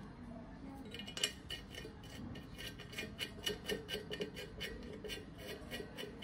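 Small steel nut being spun down by hand onto a stud of a Bajaj scooter's steel split wheel rim, clicking and clinking against its washer and the rim. The light clicks start about a second in and settle to roughly four a second.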